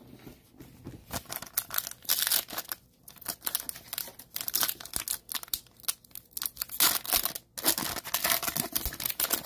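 Plastic wrapper of a 2020-21 NBA Hoops trading card pack crinkling and tearing as it is handled and ripped open by hand, an irregular run of crackles.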